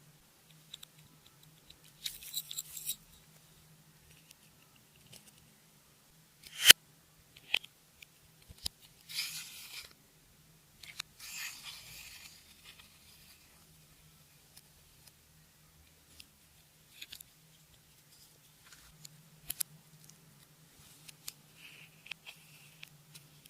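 Close-up handling of slime and makeup: scattered sticky clicks and short crackling, scraping rustles, with one sharp loud click about seven seconds in. A faint steady low hum runs underneath.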